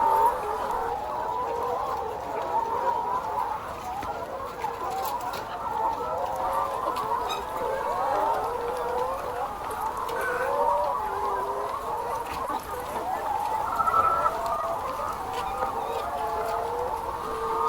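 A large flock of chickens clucking and calling together, many birds at once in a dense, unbroken chorus.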